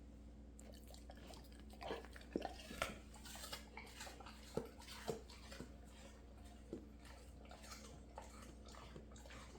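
Dog chewing and crunching a piece of apple: quiet, irregular crunches and wet clicks at an uneven pace.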